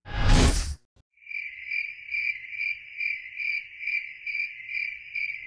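A short whoosh sweep, then from about a second in crickets chirping steadily in even pulses about twice a second.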